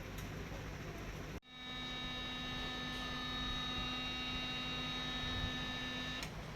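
Canon LBP2900 laser printer's main drive motor humming steadily with a whine of several fixed tones as the printer fails to initialise; the motor is jammed and turning tight. The sound cuts out briefly about a second and a half in.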